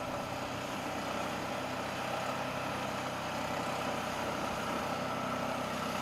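Portable band sawmill with a single-cylinder Honda GX390 OHV engine running steadily while its band blade cuts through a squared log.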